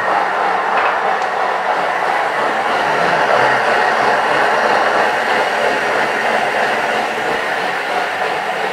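Thermomix food processor running at speed 7, its blade blending a bowl of carrots, oranges, ginger and water into juice: a loud, steady whirring churn that holds even throughout.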